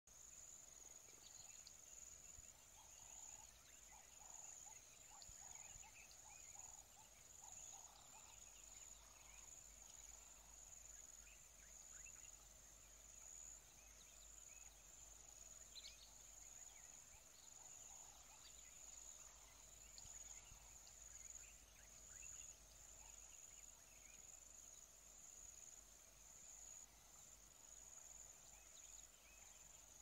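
Faint forest ambience: a steady high-pitched insect trill with scattered faint chirps.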